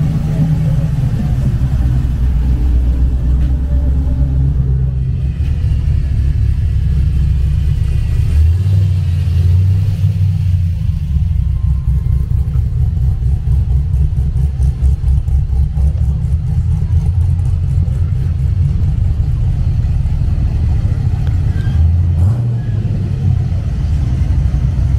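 Classic American muscle cars driving slowly past one after another, their engines and exhausts making a loud, continuous deep rumble that shifts as each car goes by.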